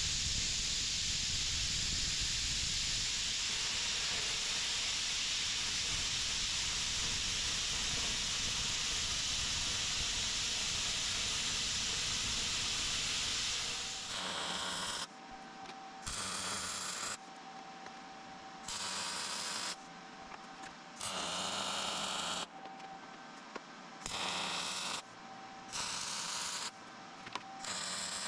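Handheld plasma cutter cutting through steel plate: a steady hiss that stops abruptly about fourteen seconds in. Then a MIG welder laying short welds, about eight bursts of a second or so each, with a faint steady tone between them.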